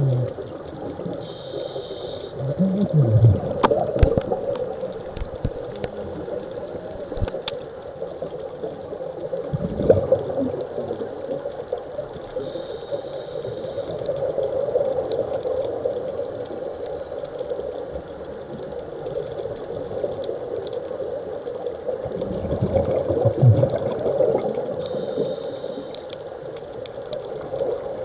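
Muffled underwater ambience picked up by a camera in the sea: a steady wash of water noise, with a few sharp clicks near the start and low whooshing surges now and then.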